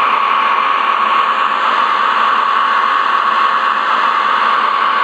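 Lionel O-scale subway train running, a steady loud rushing noise with a steady whine through it.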